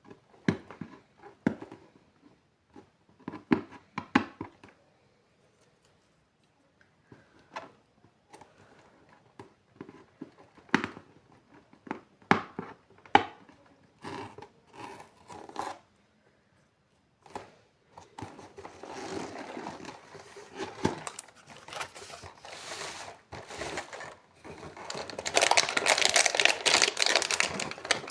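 Surprise eggs and their toy wrappers being handled and opened by hand. First comes a string of scattered sharp clicks and taps. Then, in the second half, a continuous crinkling and tearing of plastic or foil wrapping grows loudest near the end.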